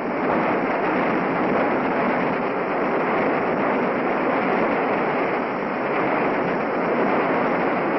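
Strong hurricane wind blowing as a steady, unbroken rushing noise.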